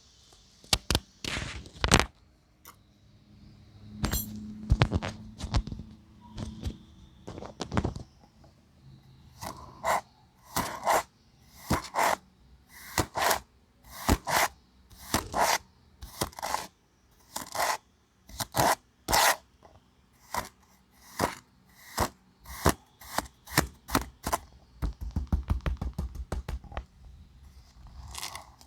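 Kinetic sand being scraped: a run of short crisp strokes, roughly two a second, ending in a quick patter of small strokes.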